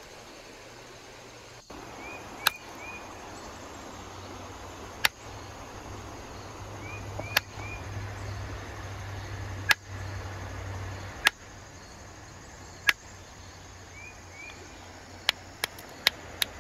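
Sharp, single knocks of a hammerstone striking quartzite, one every two seconds or so, then a quicker run of lighter taps near the end, about three a second. Faint bird chirps come in short groups of three.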